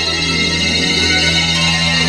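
Dark, tense background music: sustained steady tones over a low drone.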